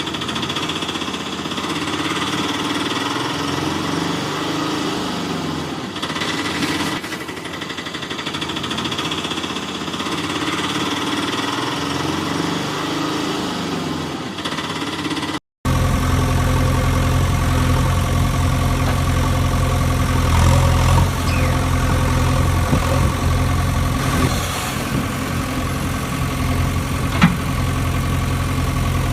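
Small motors of toy radio-controlled construction vehicles whining, their pitch rising and falling as they drive and move. After a short break about halfway, a steady, deeper engine-like drone runs on, with one sharp click near the end.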